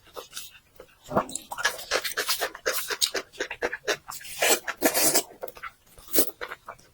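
Close-up chewing and lip-smacking while eating braised pork: many quick, irregular wet smacks and squelches.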